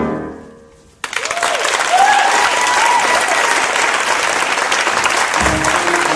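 The last held chord of a sung, orchestrated number fades away. About a second in, an audience breaks into applause, with a few whoops early on. The pit band starts playing again near the end.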